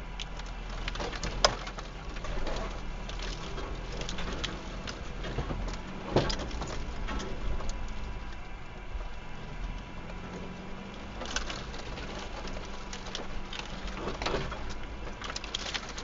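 A vehicle's engine running low and steady while it creeps through overgrowth, with branches and twigs scraping, snapping and ticking against the bodywork and windscreen now and then. The sharpest scrapes come about a second and a half in and about six seconds in.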